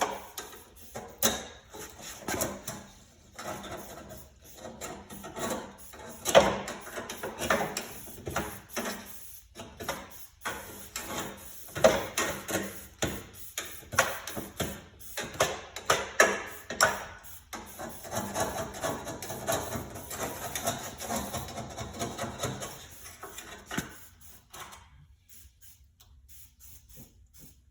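Hand scraper scraping rust off a rusty metal lawn-tractor mower deck in quick, irregular rasping strokes, dying away near the end.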